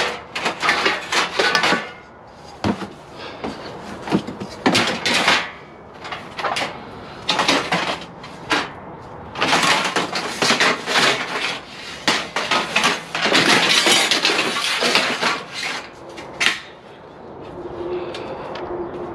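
Lengths of extruded 6063 aluminum scrap clattering and clanking against one another as they are pulled from a pile and handled, in repeated bursts of metallic rattling.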